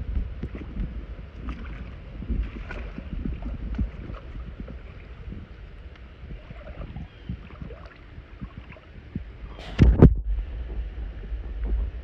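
Pool water sloshing and lapping as someone moves through it, with wind rumbling on the microphone and small irregular knocks. A short, louder burst comes about ten seconds in.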